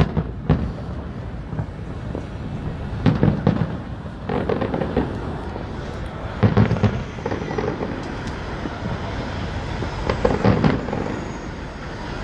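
Fireworks going off: several loud bursts and crackles, roughly every three seconds, over a continuous rumble of further explosions.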